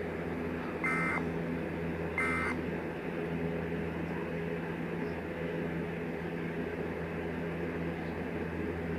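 EAS end-of-message data bursts: the last two of three short warbling two-tone digital squawks, about a second and two seconds in. A steady low electrical hum carries on underneath and through the rest.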